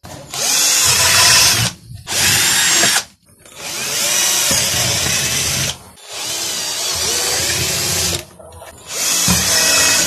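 Cordless drill boring holes through a PVC pipe, running in five separate bursts of about one to two and a half seconds each, with short pauses between them.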